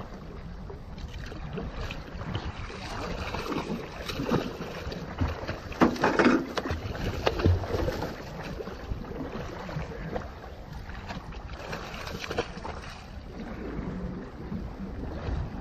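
Water splashing and churning against a small boat's hull as a hooked fish thrashes at the surface while it is being gaffed. The splashing comes in irregular surges, loudest around six seconds in, over a steady low rumble.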